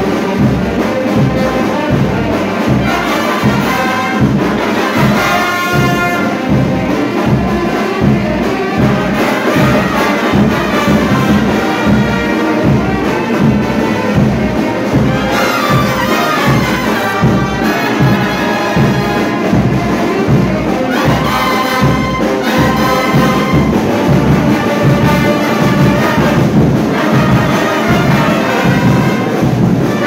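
Frevo brass band playing live: trumpets, trombones and sousaphones in full ensemble over a steady, regular beat.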